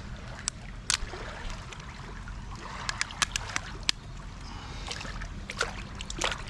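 Mud crab being snapped in half and cleaned out by hand: scattered sharp cracks and clicks of breaking shell over a low, wet hiss.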